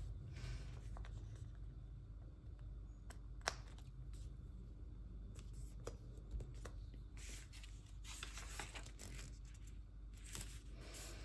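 Light rustling of paper and foil sticker sheets, with a few small clicks and taps from tweezers placing stickers on a journal page. A longer rustle about two-thirds of the way in comes as a page is turned and the sticker sheets are handled.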